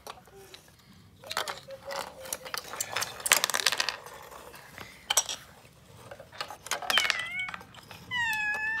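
Plastic Duplo toy animals and pieces clicking and knocking against each other and the wooden floor as they are handled and set down, with a child's high voice near the end.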